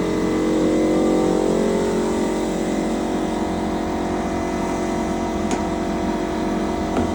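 A small motor running steadily with an even hum, starting just before and running on.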